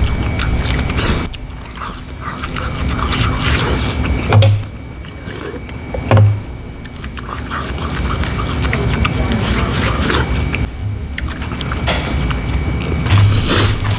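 Restaurant background of music and indistinct voices, with two short low thumps about four and a half and six seconds in.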